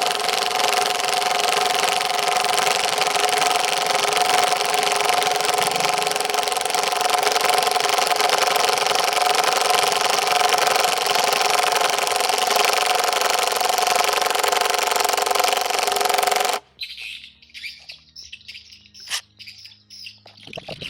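Dagmara DTD173 cordless impact driver running continuously at a steady high whine, then cutting off suddenly about three-quarters of the way through. A few faint clicks and knocks follow.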